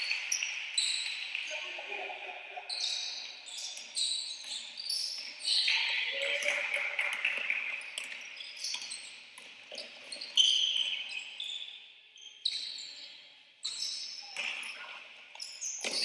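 Basketball game on a wooden court: sneakers squeaking in short, high chirps as players run and cut, a ball bouncing now and then, and players' voices calling out.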